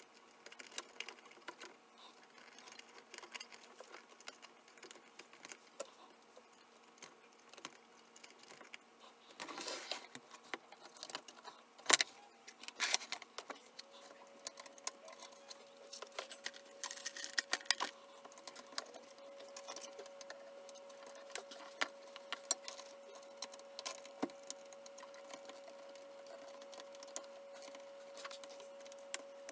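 Scattered small clicks, taps and metallic clinks of hand tools and small parts being handled during the repair of a vintage stereo receiver, with one sharper knock about twelve seconds in. A faint steady tone starts about halfway through and continues.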